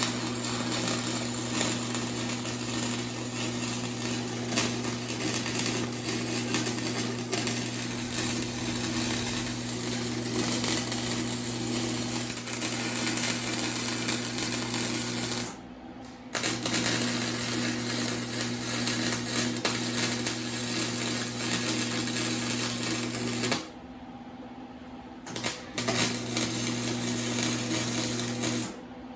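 Arc welder welding a steel exhaust pipe: a steady crackling buzz over an electrical hum, in three runs. It breaks off briefly about halfway through, stops again for a couple of seconds later on, then makes a short final run that stops just before the end.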